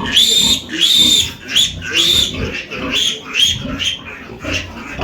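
Pigs squealing: a run of high-pitched squeals, about one a second at first, then shorter, quicker and fainter ones in the second half.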